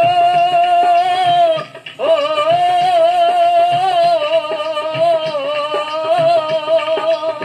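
A Punjabi song playing from a vinyl record on a record player. Voices hold one long sung note, break briefly just under two seconds in, then hold another long note that wavers in pitch, over a soft low beat.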